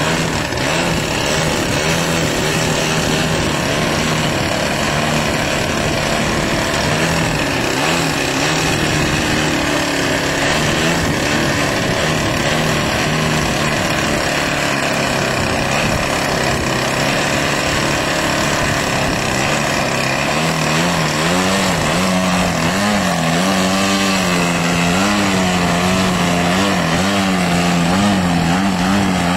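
DLE-55 single-cylinder two-stroke gas engine of an RC aerobatic biplane, turning a Vess 23A propeller through its stock muffler, running at hover throttle as the plane hangs nose-up. The pitch holds steady at first, then from about two-thirds of the way through wavers up and down as the throttle is worked to hold the hover.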